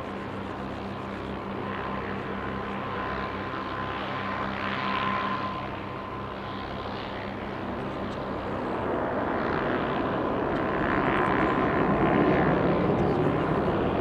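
Twin-engine widebody jet airliner taking off at full thrust: a steady rumble of jet engine noise with a high whine running through it. It grows louder over the last few seconds.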